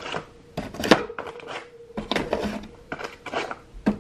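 Small products clicking and knocking as they are set down one after another into cardboard divider compartments on a wire shelf, with a faint steady hum underneath.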